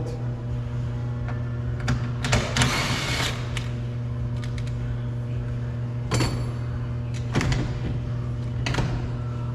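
Socket wrench backing out the last 10 mm screw of a car door mirror: scattered metallic clicks and a short rattling scrape a little over two seconds in. A steady low hum runs underneath.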